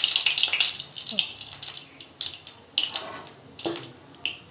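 Hot oil sizzling around lauki koftas deep-frying in a kadhai, loud at first and dying down over the first couple of seconds into scattered pops and clicks as the fried koftas are lifted out with a steel slotted spoon.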